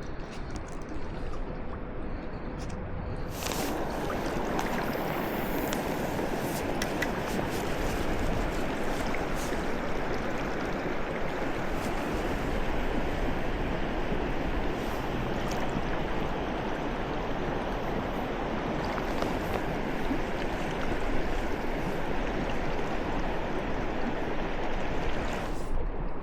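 Flowing river water rushing steadily, growing louder and brighter about three seconds in, with a few faint clicks.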